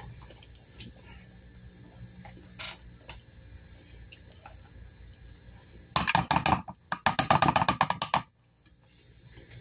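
A spoon scooping and scraping butter out of a plastic tub, with a few light clicks, then a quick run of taps and scrapes, about ten a second, for roughly two seconds near the end.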